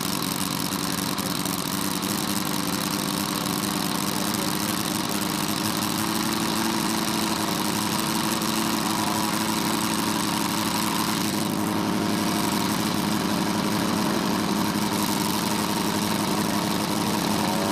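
Quarter-scale model Bentley BR2 rotary aero engine running steadily at idle on the ground, its pitch creeping up slightly.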